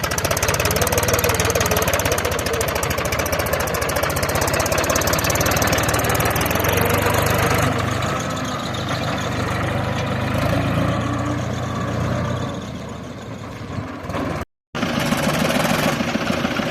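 Diesel engine of a heavy machine running steadily with an even knocking beat, easing off a little near the end before a brief drop-out, then running again.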